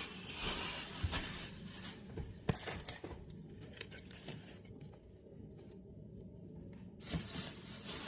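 Grocery packages being handled and set down, with rustling and a few sharp clicks and knocks in the first few seconds, then quieter handling.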